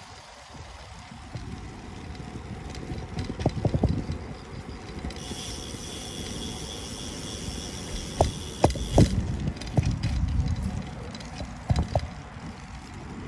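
Road and wind noise from riding a Buddy P40 along a city street: a steady low rumble with sharp knocks from bumps in the pavement. A high steady whine runs for about four seconds in the middle.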